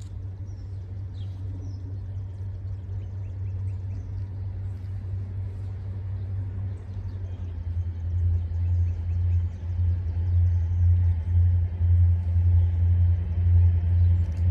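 A low rumble, steady at first, grows louder and more uneven from about halfway through. Faint bird chirps sound above it.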